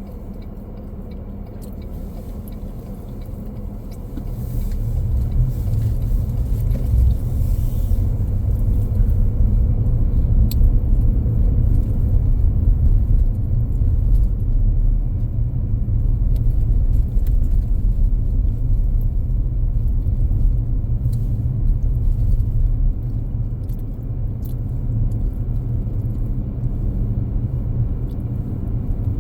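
Steady low rumble that grows louder about four to five seconds in.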